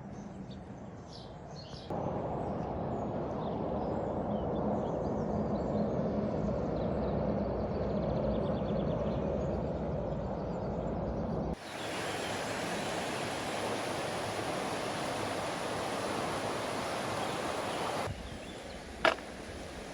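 Steady outdoor noise that changes abruptly twice: first a fuller rushing sound, then a brighter, hissier one, then a quieter one with a sharp click near the end.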